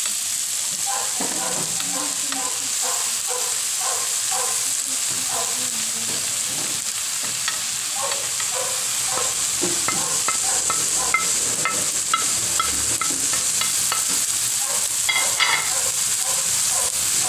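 Diced carrot, onion and bell pepper sizzling in a hot pan with a steady hiss, while a spatula stirs and scrapes against the pan in short repeated strokes. Flaked cooked fish goes in about halfway through and is stirred in.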